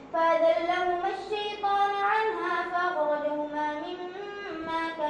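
A boy's voice reciting the Quran aloud in a melodic chant, drawing out long held notes that step up and down in pitch.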